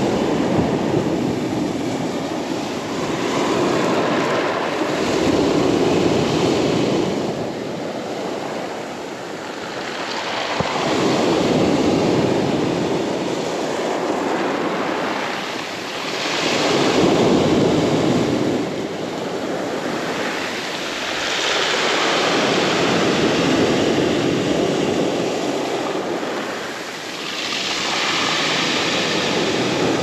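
Sea waves breaking on a pebble beach, each surge swelling and ebbing about every six seconds, with the wash hissing back over the stones after it.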